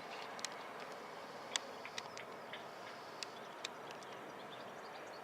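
Outdoor background: a steady distant hum with a dozen short, sharp high chirps or ticks scattered irregularly through it.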